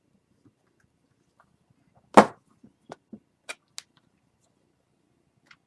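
One sharp knock about two seconds in, followed by several small clicks and taps: handling of a screwdriver and small parts on a laptop while its display screws are being taken out.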